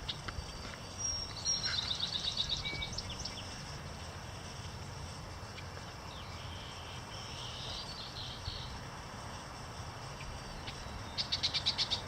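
Small songbirds singing: a run of rapid high notes about a second in, a buzzy phrase near the middle, and another fast high trill near the end, over a steady low outdoor rumble.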